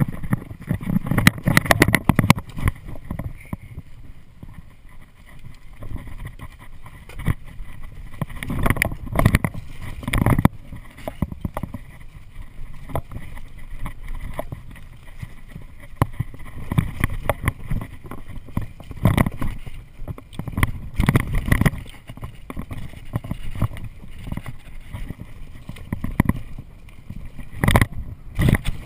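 Mountain bike ridden fast over a dirt-jump trail, heard from a chest-mounted camera: the rumble of tyres on dirt and rushing air, with bursts of rattling and knocks from the bike over the jumps several times.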